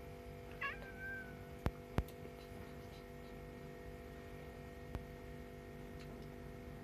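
A cat gives one short, high mew about half a second in, its pitch falling and then holding. A few sharp clicks follow, over a steady hum of room tone.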